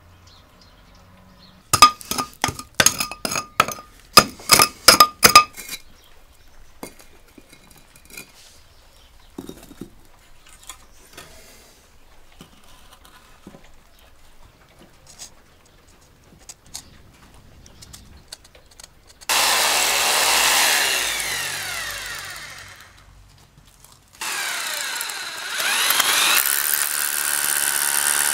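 Electric hammer drill with a long masonry bit drilling into the mortar joints at the base of a rubble-stone wall. It runs in two bursts: the first winds down with falling pitch, and the second rises to a steady pitch near the end. Earlier comes a quick run of sharp knocks.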